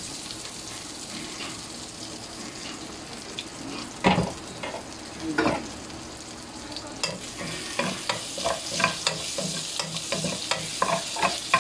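Crushed garlic sizzling steadily in hot oil in a frying pan while being stirred. The utensil knocks and scrapes against the pan, with two louder strokes near the middle and a run of quick ones in the last few seconds.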